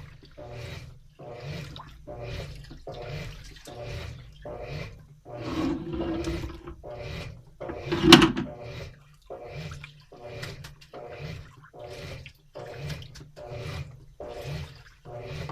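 Washing machine's central agitator swishing the wash water back and forth in steady strokes, about one every three-quarters of a second, during the wash cycle. A single louder knock sounds about halfway through.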